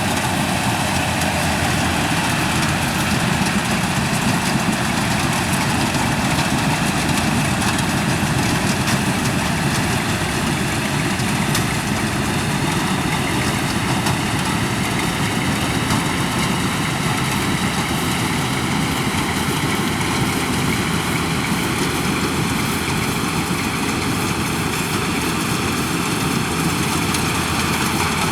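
Yanmar combine harvester running steadily as it harvests rice: a continuous, even engine drone with no let-up or change in pitch.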